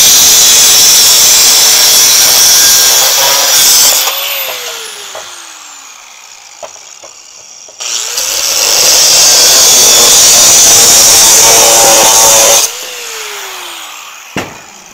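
Corded angle grinder with a cut-off wheel cutting through square steel tubing: a loud, hissing cut that stops about four seconds in as the motor winds down with a falling whine. The grinder spins up again about eight seconds in for a second cut, winds down again near the end, and a single knock follows.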